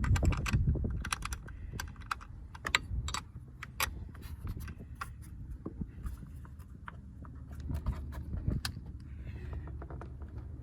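Irregular sharp metallic clicks and taps from a hand tool tightening the nut on a car battery's terminal clamp, over low handling noise.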